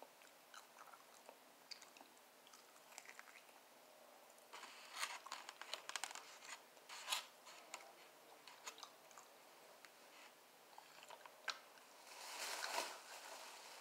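Close-mouthed chewing and crunching of a batter-fried rib. Faint clicks come early, then a run of crisp crunches lasting a few seconds in the middle. A short, louder rustling burst comes near the end.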